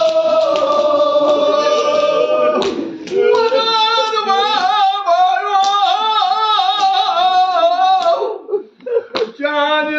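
A voice chanting a Kashmiri marsiya, a mourning elegy, in long, wavering, ornamented phrases. It breaks off briefly about three seconds in and again for about a second near the end before resuming.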